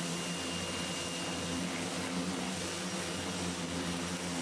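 Pressure washer running steadily: a low hum with a faint high whine over the even hiss of the water jet striking an alloy wheel.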